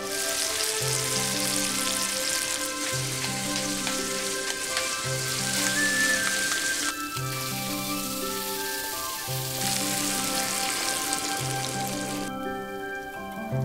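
Beef strips frying in a hot pan, sizzling loudly over background music. The sizzle drops away about seven seconds in and returns for a few seconds near the end as beaten egg goes into the pan.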